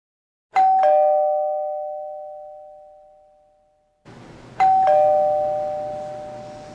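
Two-tone ding-dong doorbell chime, rung twice about four seconds apart: a higher note and then a lower one a moment later, each ringing on and fading slowly.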